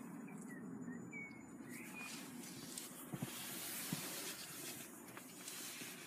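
Rustling hiss of a hand-held phone being moved about, with two light clicks about three and four seconds in.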